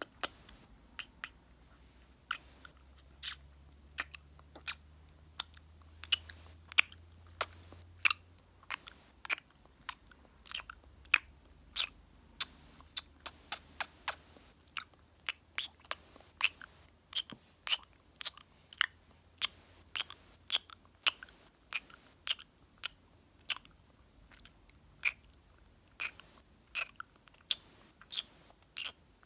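Close-miked mouth sounds: short, sharp wet clicks and kissing smacks of lips and tongue, several a second in an irregular run.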